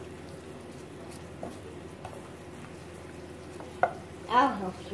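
Caramelizing sugar sizzling in a stainless steel pot while a wooden spatula stirs and scrapes through it, with a few light clicks. A brief voice is heard near the end.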